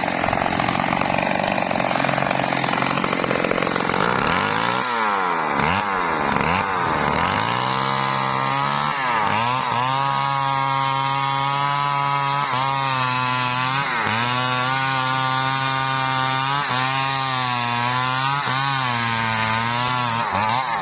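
Two-stroke chainsaw cutting teak wood, its engine note rising and falling, then holding steady under load with brief dips in pitch every second or two.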